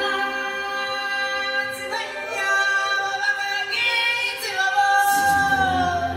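Vocal music: several singing voices, choir-like, holding long notes that shift slowly in pitch, with a deep low part coming back in about five seconds in.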